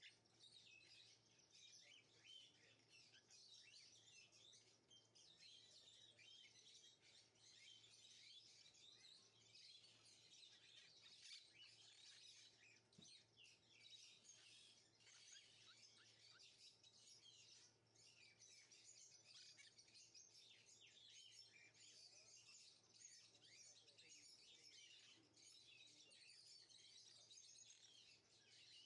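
Faint, continuous chirping of many small birds.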